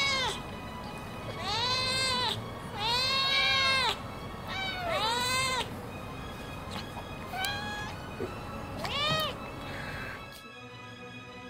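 Cats meowing again and again, about six meows, each rising then falling in pitch, over quiet background music. The meows stop near the end and only the music is left.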